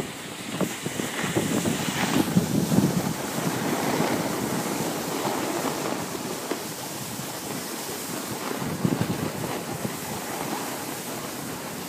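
Wind buffeting the microphone over a steady rushing hiss of packed snow scraping under sliding boards, swelling and easing through the run.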